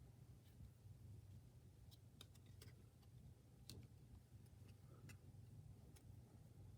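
Near silence, with a few faint, scattered clicks and light ticks of trading cards being handled and flicked through.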